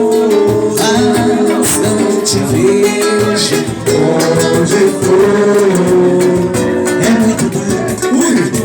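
Live bar-style band music: guitar accompaniment with a wavering melody line held over it.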